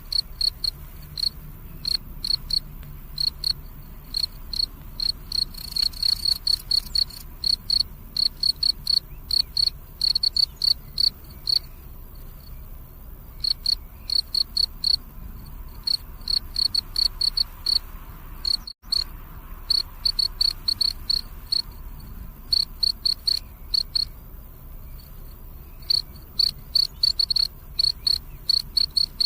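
Field crickets chirping at night: runs of short, high, evenly spaced chirps, coming in bursts with brief pauses between them. The sound cuts out for an instant about two-thirds of the way through.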